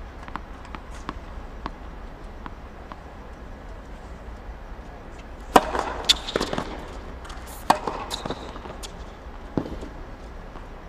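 Tennis balls struck with rackets during a practice rally: sharp pops, several in quick succession in the second half, each ringing on in the empty stadium. Lighter ball bounces and taps come before them.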